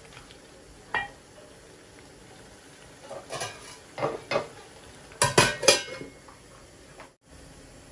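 A metal spoon clinks against a stainless steel cooking pot, followed by a few metallic knocks. About five seconds in comes the loudest part: a flat stainless steel lid is set down on the pot with several quick ringing clangs.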